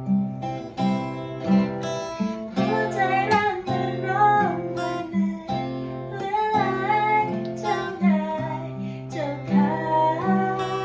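Acoustic guitar playing a song accompaniment, a bass note picked about twice a second under ringing chords, with a voice singing the melody over it in phrases.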